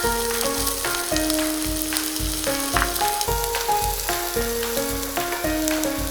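Food sizzling as it fries in hot oil in a pan, heard under background music with a melody and a steady beat.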